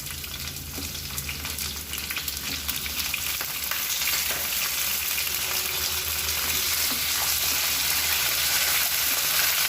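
Chopped brinjal, potato and drumstick sizzling in hot oil in a kadai, with a few scraping clicks of stirring; the sizzle grows louder from about four seconds in.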